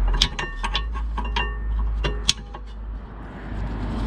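New brake pads being slid into the caliper bracket: the steel backing plates clink against the bracket's metal clips in a series of light metallic clicks with short ringing, the sharpest about a quarter-second in and just past two seconds in.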